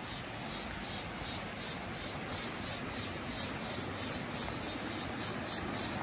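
Insects chirping in an even pulse, about three a second, high-pitched, over the steady rush of a small rocky stream.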